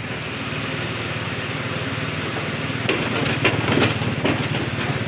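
Excavator's diesel engine running steadily, with a few short knocks or clanks about three to four seconds in.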